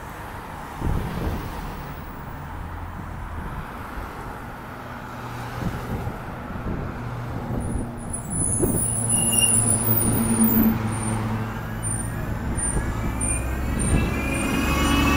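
City bus approaching, passing close and pulling away, its engine drone building and a rising whine climbing in pitch as it accelerates, over street traffic. A run of short high-pitched chirps sounds about halfway through.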